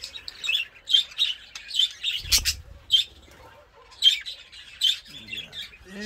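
Budgerigars chirping and squawking in short, repeated calls, with a dull bump about two seconds in.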